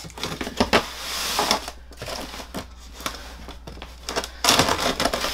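Cardboard box packaging and styrofoam inserts rustling and crinkling as a heavy statue bust is worked loose from its box, with scattered light knocks and scrapes. The rustling grows louder near the end.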